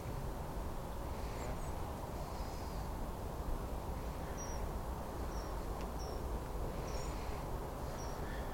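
Small birds chirping, a run of short high chirps in the second half, over a steady low outdoor rumble.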